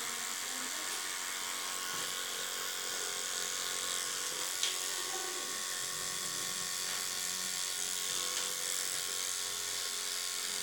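Electric dog-grooming clipper with a No. 40 blade running steadily as it shaves the hair off a schnauzer's ear, with one brief click about halfway through.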